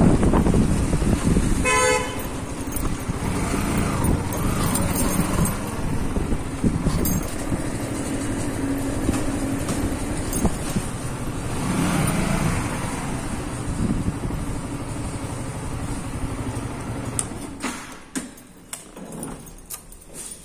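Motorbike riding with engine and road noise and a short horn beep about two seconds in. The engine sound falls away near the end, with a few clicks.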